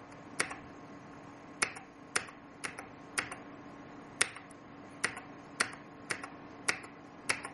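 Single key presses on a computer keyboard, about ten separate sharp clicks spaced half a second to a second apart, paging down through a text file. A faint steady low hum runs underneath.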